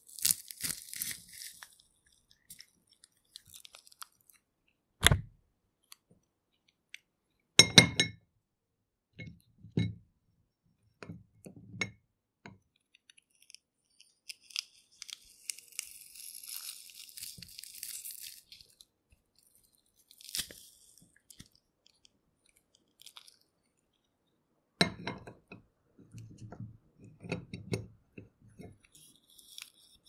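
Metal garlic press crushing peeled garlic cloves in short bouts of crunching and clicking, with sharp knocks, the loudest about five and eight seconds in. A soft scraping hiss lasts a few seconds in the middle.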